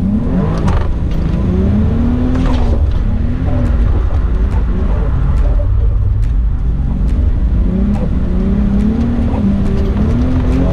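Toyota Chaser JZX100's turbocharged 1JZ VVT-i straight-six, heard from inside the cabin while drifting, its revs rising and falling again and again over a steady low rumble.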